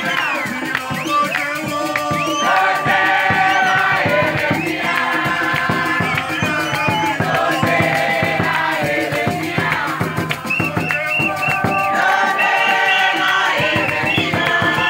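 Church congregation singing together in many voices, with a steady percussive beat underneath.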